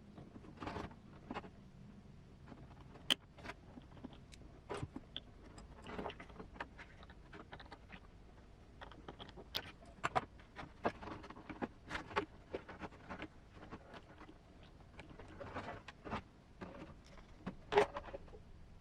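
Small plastic scale-model parts being handled and fitted: irregular light clicks and taps, with a sharper click near the end.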